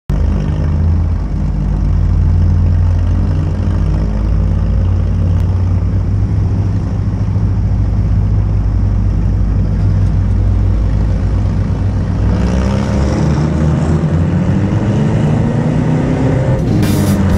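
Toyota pickup's 22R four-cylinder engine heard from inside the cab, running hard under race throttle. From about twelve seconds in, the revs rise and fall.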